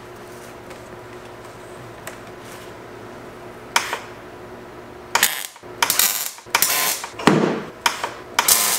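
MIG welder arc crackling as roll-cage tubing is welded: a low hum and a single click, then from about five seconds in a series of short crackling bursts of arc with brief gaps, stitch welds laid one after another.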